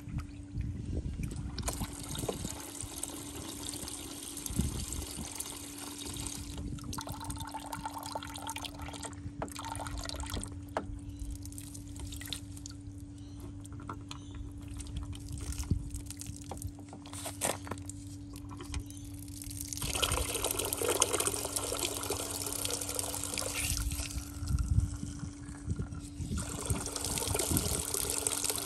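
Water running out of a garden hose and pouring into a half-full plastic bucket, with some spilling onto gravel. It is flush water being back-flushed through a car's heater core. The flow comes and goes in stretches and is heaviest in the last third.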